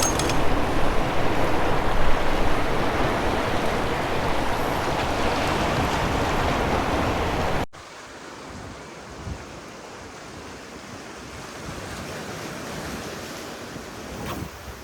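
Surf washing on the shore with wind buffeting the microphone, a loud steady rush that drops suddenly about halfway through to a much quieter wash of waves.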